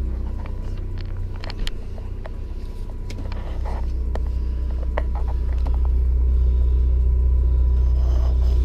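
Motorhome generator running with a steady low drone that grows louder over the last few seconds, with scattered light clicks and knocks of things being handled.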